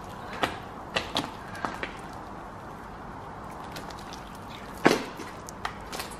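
Glue slime being squeezed and stretched by hand, giving a series of sharp pops and clicks as air escapes; the loudest pop comes about five seconds in.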